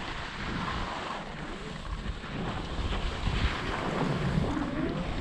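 Wind rushing over the camera microphone while skiing downhill, with skis scraping and chattering over firm, chopped-up snow.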